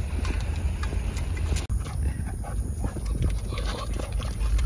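A Samoyed making dog sounds close to the microphone, over a heavy, steady wind rumble on the microphone; the sound drops out for an instant about a second and a half in.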